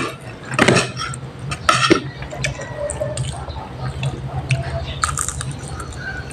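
A child slurping and chewing pancit canton instant noodles: wet sucking bursts with short clicks of spoon and fork against the plate.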